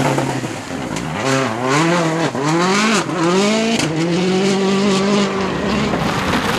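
Rally car engine revving hard as it accelerates out of a muddy gravel corner. Its pitch climbs and drops sharply with quick gear changes about two and three seconds in, then holds steady as the car pulls away.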